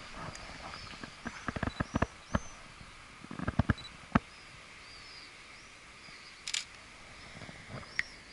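Camera shutter clicking in two quick bursts in the first half, then a few single clicks. Small birds chirp throughout over a steady outdoor hiss.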